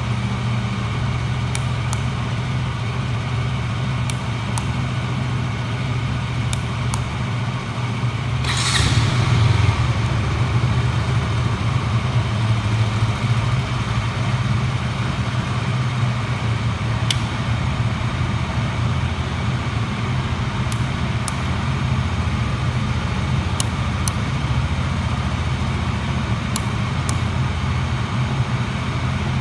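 KTM 200 single-cylinder engine running on its stock exhaust, idling steadily, with one brief louder surge about eight seconds in.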